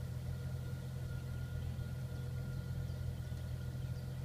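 Jeep engine idling steadily: a low, even hum with a faint steady whine above it.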